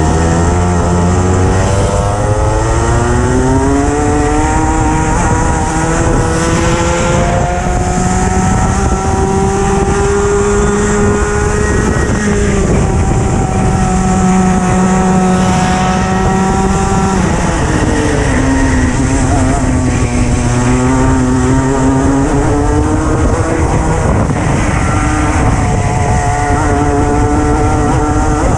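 Racing kart's engine heard from the driver's seat at full race pace: the revs climb steadily along the straights and drop sharply as it brakes for corners, a couple of times in a row, then climb again. Wind and road noise run under it.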